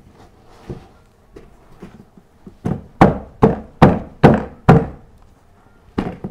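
A run of sharp knocks, about two a second, then one more after a short pause: a flat-pack furniture panel being knocked down onto its wooden dowels to seat it in the frame's holes.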